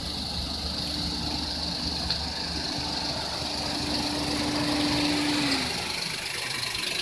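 Engine noise: a steady low rumble with a hum that dips slightly in pitch and stops about five and a half seconds in.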